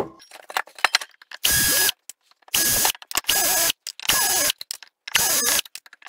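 Power screwdriver running in five short bursts about a second apart, after a few light clicks, as it backs out the screws holding an aluminium heatsink to a circuit board.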